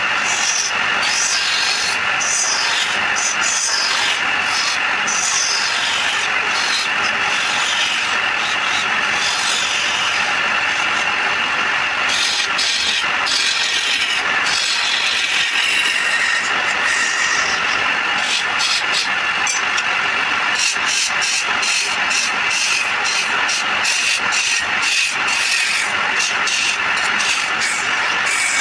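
Wood lathe running while a turning tool cuts the spinning wood: a steady machine hum under a rough scraping hiss that never lets up, with a tone that now and then slides downward as the cut changes.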